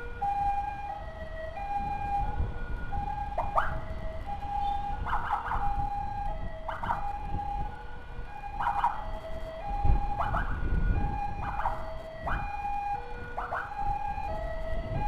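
Ambulance siren sounding a repeating pattern of stepped high and low notes, with short rising whoops cutting in about once a second from a few seconds in, over a steady low motorcycle engine and wind rumble.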